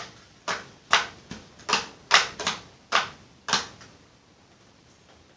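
Plastic clicks of the top vent slider on an NJS ZX-1 motorcycle helmet being pushed open and shut, about eight sharp clicks at a steady pace that stop a little before four seconds in.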